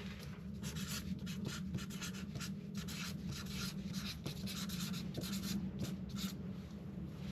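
Irregular scratching and rubbing strokes of something being handled close to the microphone, over a steady low hum.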